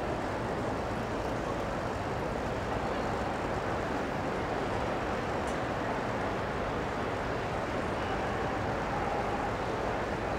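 Steady background noise of a large, busy exhibition hall: a constant murmur from the crowd and the hall, with no distinct events. A faint steady tone joins about eight seconds in.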